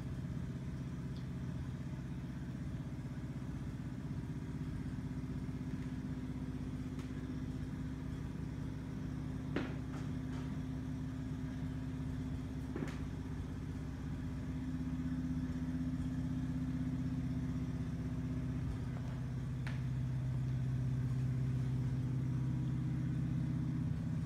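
A steady low machine hum that grows a little louder about halfway through, with a few faint clicks.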